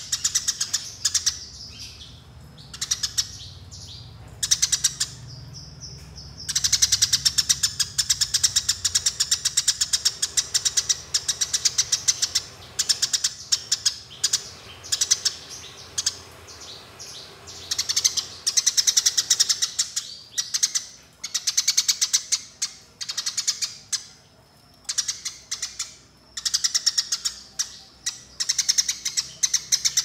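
Eurasian tree sparrow chirping in fast, rolling runs of 'fighting' chatter, many chirps a second. The runs last several seconds each, with short pauses between them.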